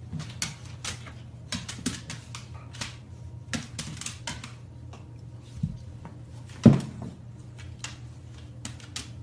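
Dog claws clicking and scrabbling irregularly on a hardwood floor as two dogs play-wrestle, with one heavy thump about two-thirds of the way through. A steady low hum runs underneath.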